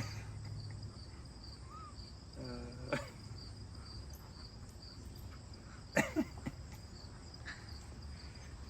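Crickets chirping steadily in the background. A man gives a short laugh about two and a half seconds in, and there is a sharp sound about six seconds in.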